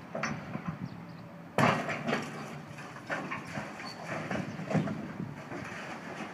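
Demolition of a brick hotel tower: a sudden crash about one and a half seconds in, followed by a run of knocks and clattering from falling brick and debris. A steady low engine hum runs underneath.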